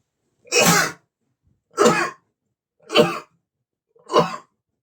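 A man sneezing four times in quick succession, about one sneeze every second and a bit, each sharp and loud.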